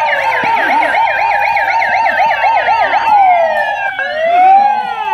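Electronic siren sounding loudly, a fast up-and-down yelp of about four cycles a second that changes about three seconds in to a slow falling and rising wail, with other glides overlapping.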